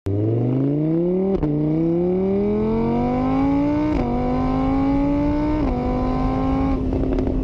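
Car engine accelerating through the gears, its pitch climbing and dropping at each of three upshifts, then holding steady near the end: a car-acceleration sound effect.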